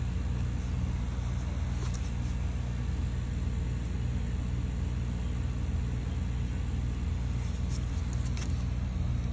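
Steady low mechanical hum in the background, with a few faint clicks of plastic jugs being handled about two seconds in and near the end.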